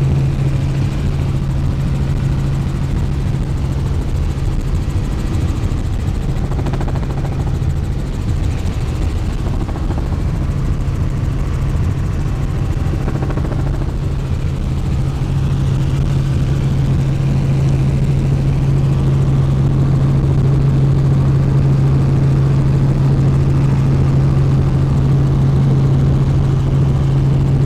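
Helicopter engine and rotor noise inside the cabin in steady flight. A strong low hum holds one pitch throughout over an even rush of noise.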